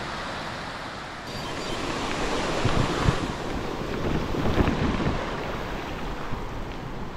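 Wind rushing over the microphone while riding, swelling in the middle with a couple of gusty low buffets.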